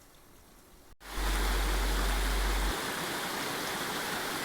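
Loud, steady rushing of a mountain stream, with a deep rumble underneath that drops away partway through. The sound starts abruptly about a second in.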